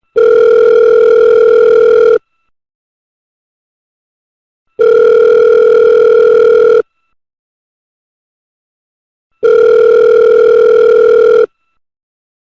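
Telephone ringback tone, the calling sound a caller hears while the other phone rings: three steady, even-pitched tones of about two seconds each, separated by pauses of silence of about two and a half seconds.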